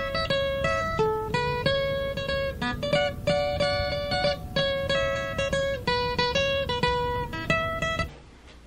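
Background music: a plucked acoustic-guitar tune of quick single notes, stopping suddenly about eight seconds in.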